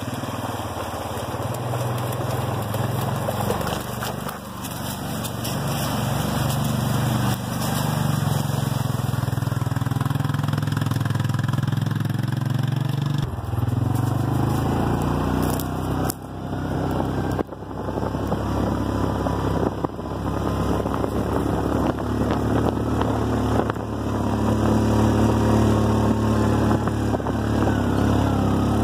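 Side-by-side utility vehicle's engine running steadily while driving along a dirt trail. Its engine speed changes about halfway through and again near the end.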